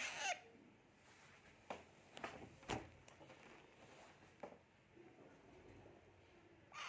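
A pet parrot gives short squawks with a falling pitch, once right at the start and a couple more just before the end, with a few faint clicks and taps in between.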